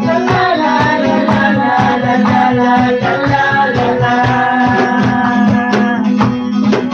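Contemporary worship song: voices sing a 'la la la' refrain over a band with steady, shaker-like percussion.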